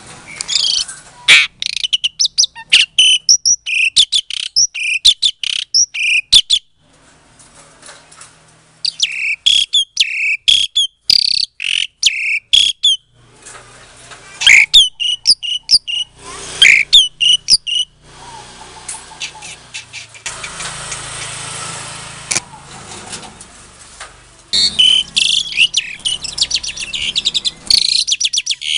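Javan pied starling (jalak suren) calling in runs of loud, sharp, rapidly repeated whistles and chattering notes, broken by short pauses. Partway through the calls stop for several seconds and a steady hiss of rustling noise takes over, before the chattering starts again near the end.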